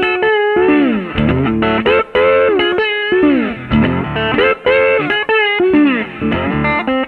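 Background music: a guitar-led track whose notes repeatedly bend and slide in pitch.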